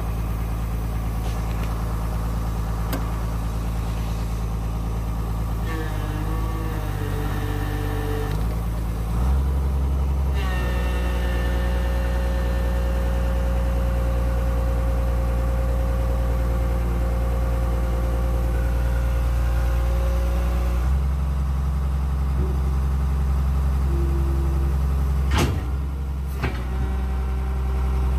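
Komatsu PC220LC excavator's diesel engine running under hydraulic load as the boom and stick are worked, a test for power loss from air in the fuel system. The engine grows louder about nine seconds in as a steady whine joins, eases somewhat later on, and there is a sharp click near the end.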